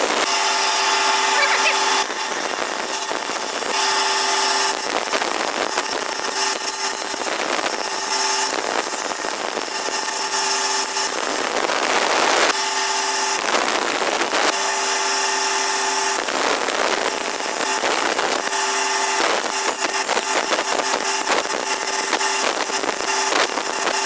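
Woodworking power tool running and cutting wood in a series of short clips. A steady motor hum sits under rough cutting noise, and the sound changes abruptly every couple of seconds.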